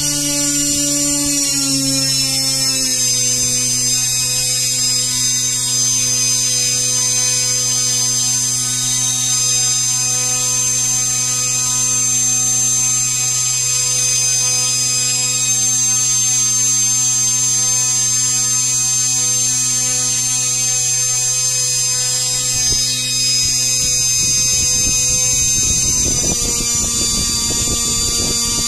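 3D-printed brushless motor running steadily with an electric whine and a motor hum. Its pitch drops slightly in the first few seconds, then holds. About 26 seconds in, a rough rushing noise joins it.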